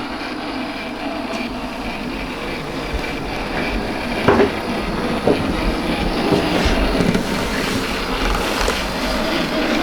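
An OO-gauge model train, a Bachmann 64xx pannier tank locomotive with a Hornby autocoach, running along the track with a steady rumble of motor and wheels on rail. There are two sharp clicks a little before halfway, about a second apart.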